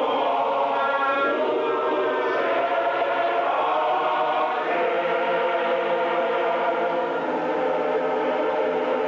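A choir singing slow, held notes in harmony, conducted with a baton.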